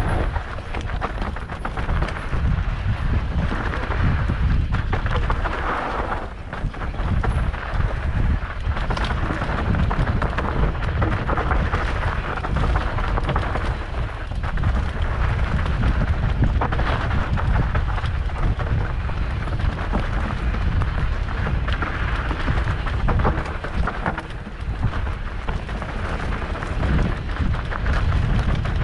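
Mountain bike descending a rough downhill dirt trail: heavy wind rumble on the microphone over the tyre noise and the clatter of the bike over bumps and roots.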